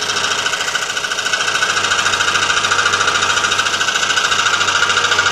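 Scroll saw running, its blade cutting through thin sheet metal sandwiched between plywood: a steady, fast chattering buzz.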